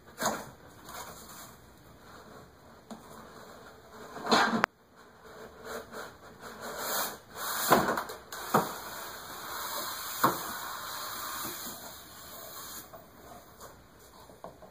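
Cardboard box and styrofoam packing scraping and rustling as a computer case is worked out of its shipping box, with several sharp knocks along the way.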